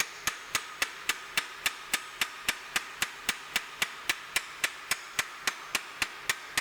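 Ball peen hammer peening over a hot steel rivet-tenon on the anvil, riveting a plate onto the bar: a steady run of quick, even blows, about three to four a second.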